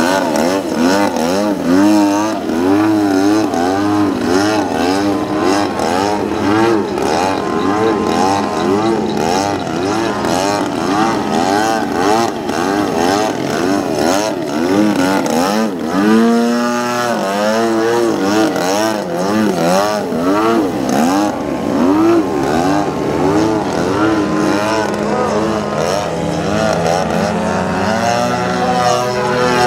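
Engine and propeller of a radio-controlled 89 Slick aerobatic model plane in flight, its pitch rising and falling over and over as the throttle changes and the plane swings past. A sharp pitch sweep comes about halfway through.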